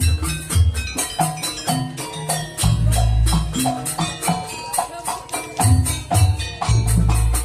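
Live Javanese gamelan-style dance music of the kind played for jaranan and gandrung. Quick, even percussion strikes run over ringing metallophone notes, with heavy deep drum or gong beats every second or two.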